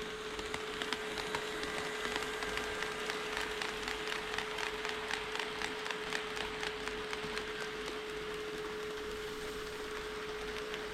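HO scale model train rolling past, its wheels clicking rapidly over the rail joints of the track, the clicks thinning out after about seven seconds. A steady hum runs underneath throughout.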